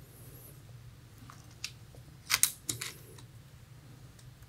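A few light mechanical clicks from the .30 cal FX Wildcat MKIII air rifle's action being worked before a shot: a faint click about one and a half seconds in, a cluster of sharper clicks about two and a half seconds in, and a couple more near three seconds.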